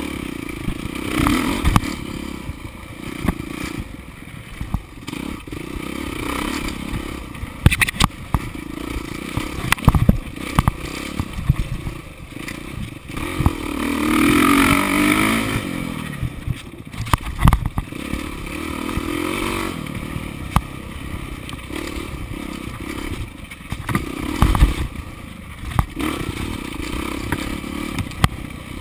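Dirt bike engine being ridden hard, its revs rising and falling through the throttle, with a loud climb in revs about halfway through. Sharp knocks and clatter come from the bike over rough ground.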